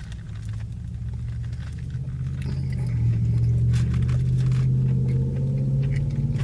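Chewing and crunching of fried fast food with small scraping and rustling noises, over a steady low hum that grows louder about three seconds in.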